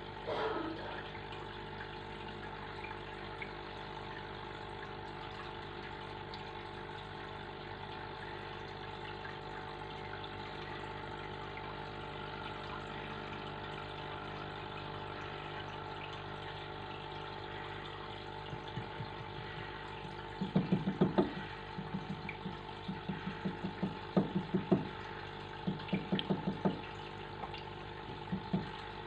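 Aquarium filter pump running steadily with water trickling, a constant hum of several tones. Near the end, several short bursts of rapid rattling pulses stand out louder than the hum.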